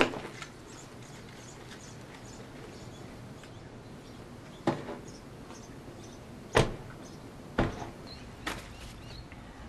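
Car doors being handled and shut: a sharp knock right at the start, then four separate thumps about five, six and a half, seven and a half and eight and a half seconds in.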